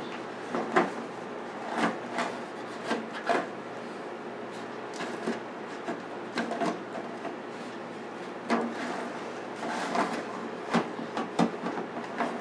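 Scattered knocks, clinks and scrapes as a foil muffin pan and the wire rack are handled inside a countertop air fryer oven, over a steady low hum.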